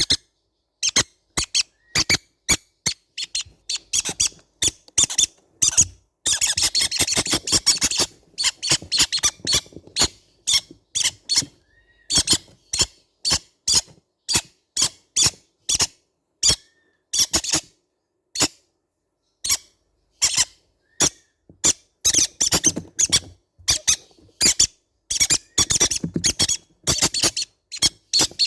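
Baby green-cheeked conures calling in rapid, sharp, squeaky chirps. Most calls come one at a time, with denser bursts of chatter about six seconds in and again after about twenty seconds.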